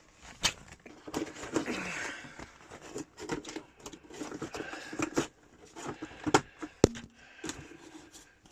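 Hands handling the plastic body and parts of a Miele Complete C3 vacuum cleaner: scattered clicks, knocks and rustling, with the motor not running.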